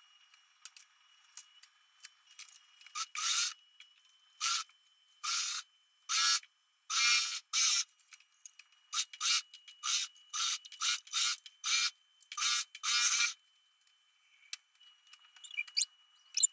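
Cloth being handled: a string of short, irregular rubbing and scraping swishes of fabric, about a dozen between roughly three and thirteen seconds in, with a faint steady high whine behind them.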